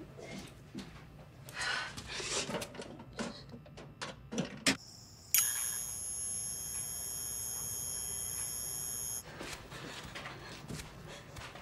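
A high-pitched electronic whine of several steady tones held together, starting suddenly about five seconds in and cutting off sharply about four seconds later. Faint clicks and rustles come before it.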